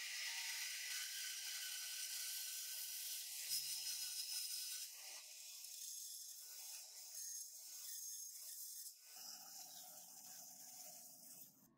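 Bandsaw blade cutting through a thick Robinia acacia hardwood board, a steady rasping hiss. It eases off a little about five seconds in and cuts off abruptly near the end.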